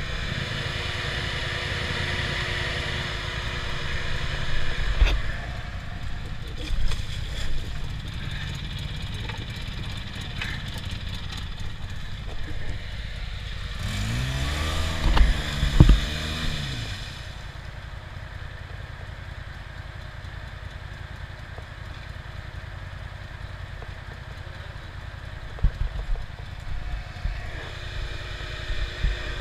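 ATV engines running in mud, one revving up and back down about halfway through as it pulls. A few sharp knocks and clanks come near the start and near the end.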